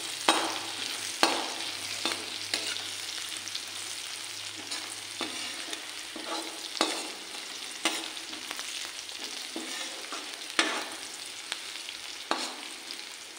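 Chopped green chillies and garlic sizzling in hot oil in a metal kadai, stirred with a perforated metal slotted spoon that scrapes and knocks against the pan irregularly, about once a second.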